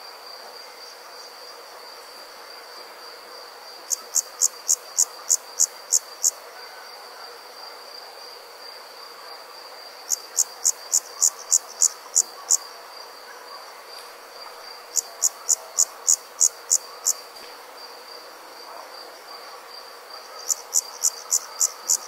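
Night insects calling: a steady high-pitched trill runs on unbroken beneath loud runs of sharp chirps, about four a second. The runs come four times, every five or six seconds, each lasting two seconds or so.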